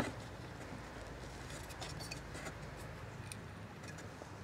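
A sharp click as the spark plug HT lead's cap is pushed onto the spark plug of a Husqvarna R 53SV lawn mower engine, followed by faint handling ticks and rustles over a low steady hum.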